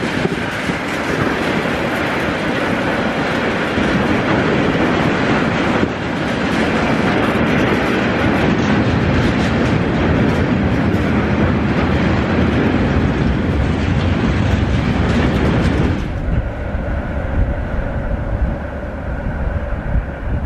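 Freight train of tank wagons rolling past close by: a steady rumble and clatter of wheels on the rails. About 16 s in it turns duller, and faint steady tones show as the wagons draw away.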